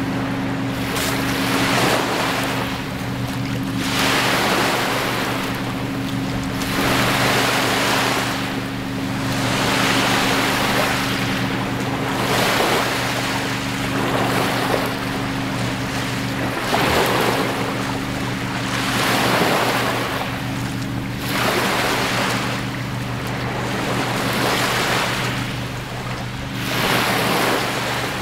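Small lake waves breaking and washing up on a sandy shore, swelling about every two seconds, with wind on the microphone and a steady low hum underneath.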